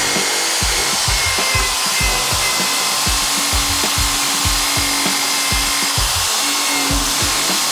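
A Makita electric drill spinning a wire wheel brush against the rusty steel wrench, scrubbing off rust with a steady whine and rasp.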